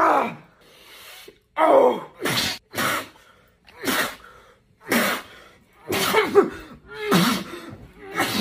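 A man coughing and gasping in about ten harsh, loud fits, roughly one a second, from the burn of a drink of pure wasabi powder mixed in water.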